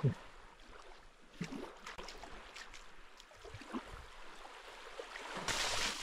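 Faint rushing water with a few scattered soft clicks, the rushing swelling louder about five and a half seconds in.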